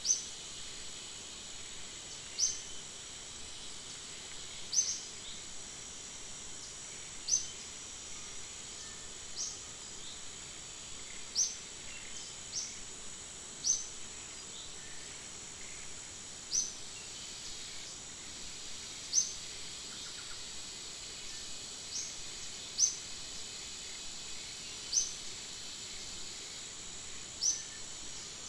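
Tropical forest ambience: a steady high-pitched insect drone, with a short rising bird call repeated every two to three seconds.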